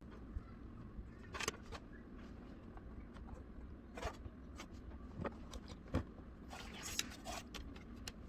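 Packaging being handled while a boxed figure is unpacked: scattered small clicks and short scraping, rustling bursts, the busiest stretch near the end.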